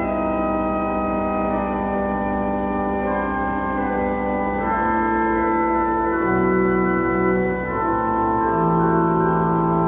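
Walcker pipe organ playing a hymn in sustained chords, changing every second or two. A bass line comes in about six seconds in.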